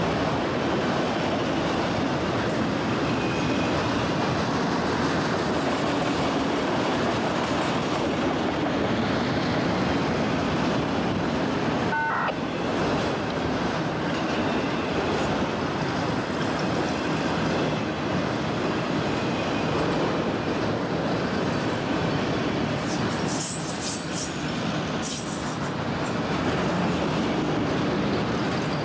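CSX freight train of autorack cars rolling past close by: a steady rumble and clatter of steel wheels on rail. A short squeal comes about halfway through, and a few sharp, high-pitched wheel squeals come about three-quarters of the way in.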